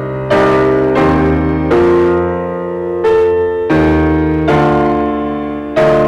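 Background piano music: a slow sequence of struck chords, each one ringing and fading before the next, about seven in all.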